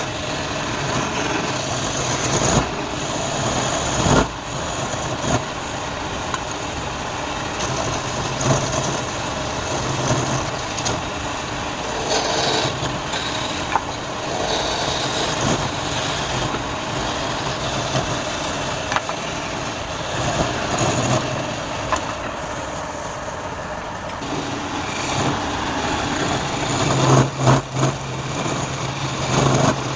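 Wood lathe running with a turning tool cutting the spinning wood: a steady rough cutting noise over a low motor hum, with occasional sharp clicks.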